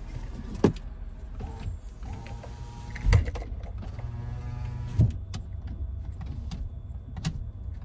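A car's power window motor whirring for about three seconds, starting near two seconds in, with knocks in the cabin, the loudest about three and five seconds in.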